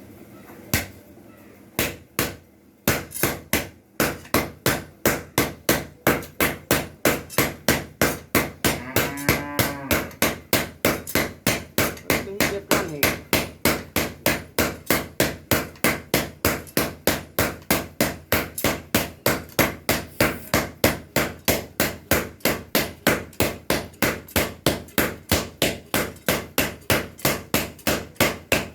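Metal sound bowl being hand-hammered: a few separate blows, then steady rhythmic hammer strikes at about three a second.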